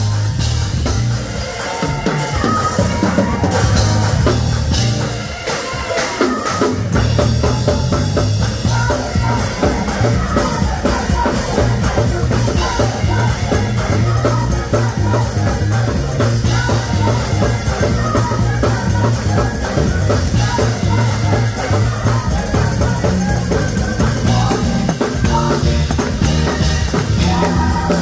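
Combined youth gospel choir singing with a live band, a drum kit keeping a steady beat under the voices. The drums and bass drop out briefly about five seconds in and come back in full a second or so later.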